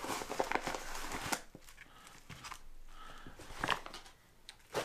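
A padded mailer envelope and plastic-wrapped penny rolls rustling and crinkling as the rolls are pulled out, with a few light knocks from handling, the sharpest near the end.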